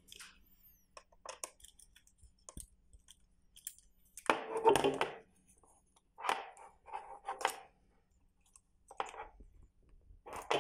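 Plastic fender bracket and hardware being handled with small clicks and knocks, then several short crunchy scraping bursts, the loudest about four seconds in, as a screw is turned into the bracket with a folding Allen-key multi-tool.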